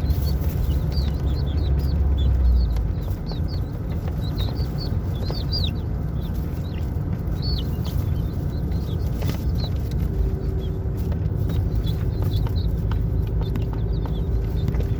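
Young chickens peeping, a scatter of short high down-slurred cheeps that thin out after the first half, over a steady low rumble; a steady hum joins about ten seconds in.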